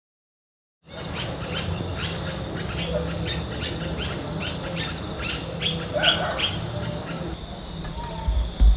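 Outdoor nature ambience that starts about a second in: a steady insect trill with a rapid series of short, falling bird chirps over it. Under it is a low rumble, with a brief louder low rumble near the end.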